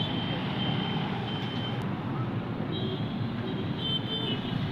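Jeep engine running steadily, with short high-pitched beeps several times on top.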